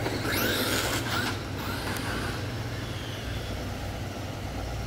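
Traxxas Maxx RC monster truck's brushless electric motor whining up with tyre noise as it accelerates hard away across asphalt. The burst fades after about two seconds as the truck gets far off.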